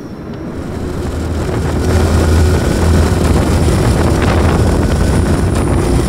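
Deep rushing rumble of a vehicle moving at speed, with wind rush, swelling over the first two seconds and then holding steady.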